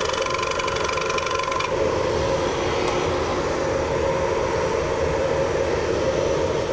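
Wood lathe running with a bowl spinning, while an Easy Wood Tools Easy Finisher carbide cutter takes a light finishing cut inside the bowl, a fine scraping hiss that stops about two seconds in. The lathe motor then runs on steadily alone.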